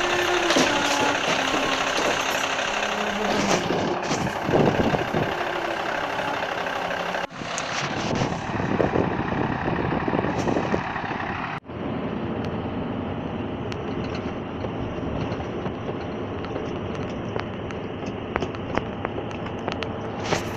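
Scania timber truck's diesel engine running as its hydraulic log-loading crane works, with a few knocks. After two abrupt cuts, steady engine and road noise from inside the truck cab while driving.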